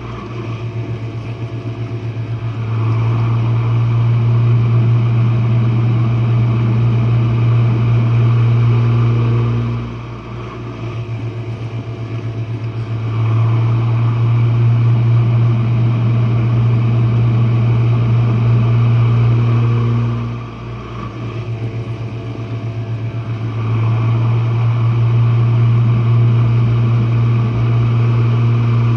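Jenn-Air dishwasher's wash pump running with a loud, low hum. It swells for about seven seconds, then eases into a quieter, fluttering stretch of two or three seconds, over and over.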